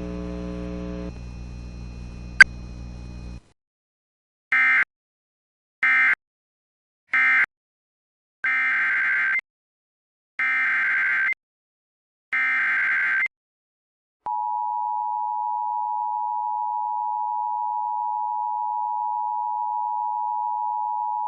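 EAS/SAME digital signalling on NOAA Weather Radio. After faint broadcast hum with a single sharp click, three short buzzy end-of-message data squawks mark the close of one warning. Three longer warbling SAME header squawks follow, then the steady 1050 Hz Weather Radio alert tone is held for about eight seconds, announcing a new warning.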